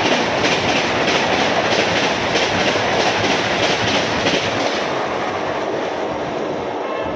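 Rajdhani express coaches passing at speed, their wheels clattering over the rail joints in a quick even rhythm. The clatter fades about five seconds in as the train draws away.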